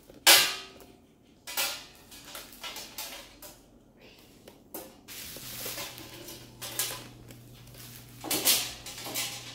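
A mini oven's metal wire rack and baking trays clanking and clattering as they are handled and set down on a wooden floor, in a string of separate knocks. The loudest clank comes about a third of a second in and rings briefly; more clanks follow about a second later and again near the end.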